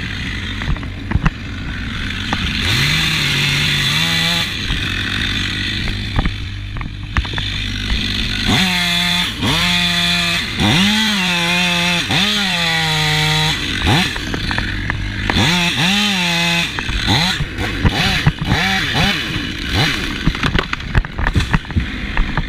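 Chainsaw running, throttled up in several bursts and dropping back between them: a short one about three seconds in, a long one for about five seconds from eight seconds in, and another around sixteen seconds.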